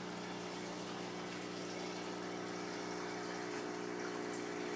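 Aquarium sump pump running, kind of loud: a steady hum of several even tones over a constant rush of water.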